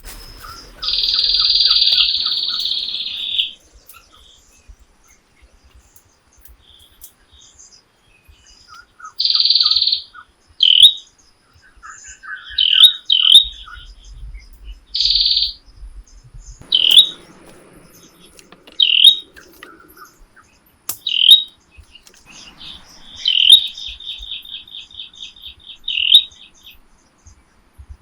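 A bird calling again and again: loud, high chirps up to about a second long, and two longer rapid trills, one near the start and one towards the end.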